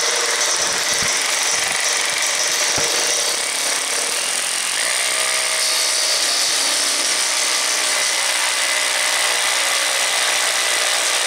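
Bosch hammer drill boring a 3/4-inch anchor-bolt hole into a concrete floor with a long masonry bit, drilling steadily without a break.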